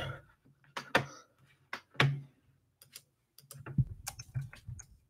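Typing on a computer keyboard: a few separate key clicks, the loudest about one and two seconds in, then a quicker run of lighter keystrokes near the end.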